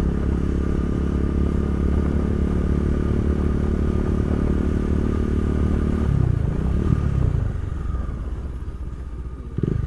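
Motorcycle engine running at a steady speed, then easing off and fading after about six seconds. There is a short knock near the end.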